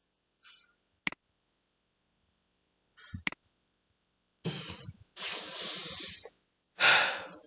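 Two sharp single clicks, likely a computer mouse, then three short bursts of breath-like hiss on the microphone in the last few seconds, the last one the loudest.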